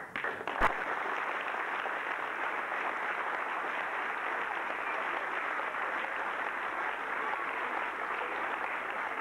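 Audience applauding: steady clapping from a hall full of people, with a single sharp knock less than a second in.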